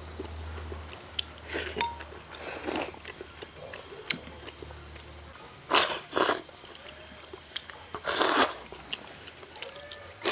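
Person eating hand-made noodles with chopsticks straight from the bowl's rim: chewing and short, noisy slurps and sucks. The loudest come just before six seconds in, again just after, and about eight seconds in.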